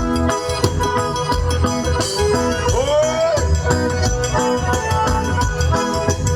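Forró pé-de-serra band playing an instrumental passage: accordion melody over a steady low drum beat with a regular ticking percussion pattern. A brief sliding pitched sound rises and falls near the middle.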